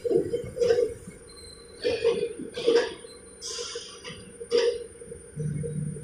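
Machine-shop noise: a steady machine hum with a faint high whine, broken by irregular short noisy bursts about once a second. A deeper hum comes in near the end.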